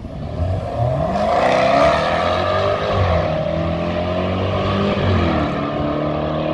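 Jaguar F-Type SVR's supercharged 5-litre V8 accelerating away. The engine note climbs in pitch, then steps down at upshifts about three and five seconds in, as the car draws away into the distance.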